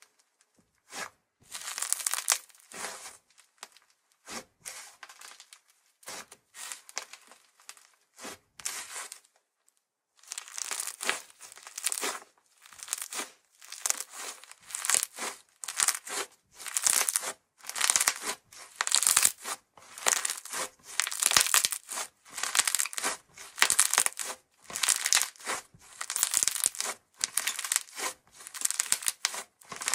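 Thick white slime with small candy-heart pieces being pressed, squeezed and pulled apart by hand, giving crisp tearing, crumpling sounds in quick repeated bursts. The bursts are sparse at first, stop briefly about nine seconds in, then come in a steady run.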